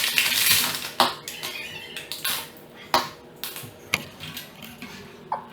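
Clattering and sharp knocks of hard objects being handled and set down, half a dozen separate clinks and thumps spread a second or so apart, with a busier rattle in the first second.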